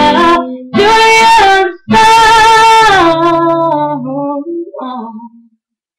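A woman singing the closing phrase of a song to her own acoustic guitar: a long held note, then a few lower notes as the guitar stops. The sound fades out about five and a half seconds in.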